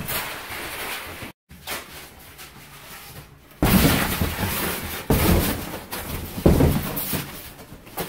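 Cardboard packaging and a polystyrene insert being handled, scraping and rustling in three loud bursts in the second half.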